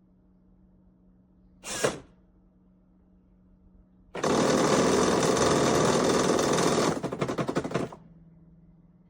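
Shark robot vacuum system: a brief click-like burst, then about two seconds later a loud rushing machine run of about four seconds that breaks into a rapid stutter for its last second before cutting off.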